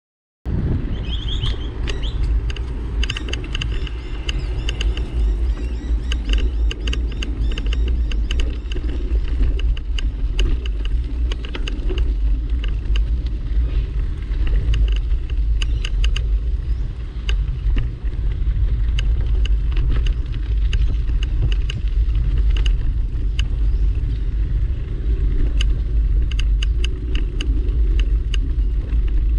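A steady, loud low rumble of handling and wind noise on a moving camera's microphone, with many quick clicks and ticks over it.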